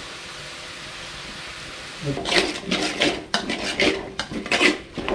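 Vegetables frying with a steady sizzle in a large metal kadai; about two seconds in, a metal spatula starts stirring, scraping and clanking repeatedly against the pan.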